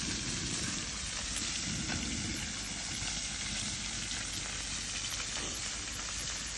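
Fish frying in hot oil in a pan, a steady sizzle.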